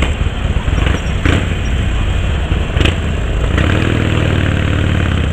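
Harley-Davidson Sportster XL1200's air-cooled V-twin running as the bike rolls slowly. The throttle is blipped unevenly over the first few seconds, then the engine settles into a steady run.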